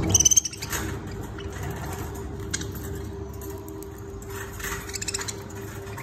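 Budgerigars chirping and chattering in a cage: squeaky calls just after a low thump at the start, and a quick run of chirps near the end, over a steady low hum.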